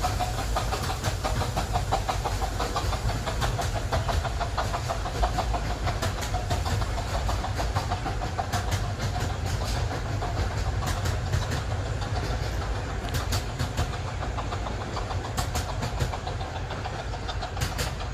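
Romney, Hythe & Dymchurch Railway miniature steam locomotive running past with its train, chuffing in rapid beats, then wheels clicking over the rail joints as the carriages go by and the sound starts to recede.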